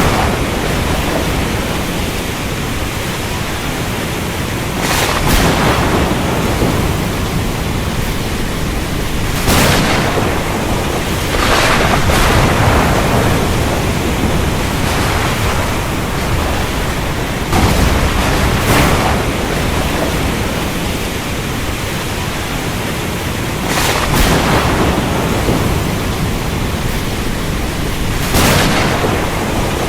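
Steady heavy rain in a thunderstorm, broken about seven times by short, sharp thunder cracks.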